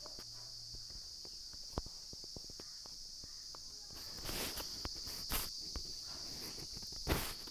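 Low background noise with a steady high-pitched hiss, broken by scattered soft clicks and a few brief rustling noises about halfway through and near the end.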